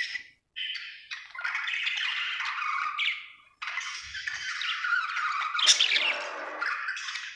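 Budgerigar chirping and chattering in quick, busy phrases, the happy chatter of a contented budgie, with two brief pauses and a sharper squawk near six seconds in.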